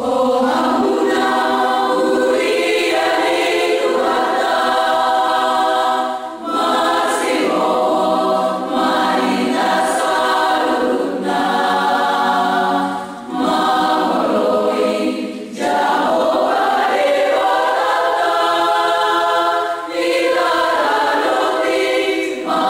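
A group of young women singing together as a choir, in long sustained phrases with short breaks between them.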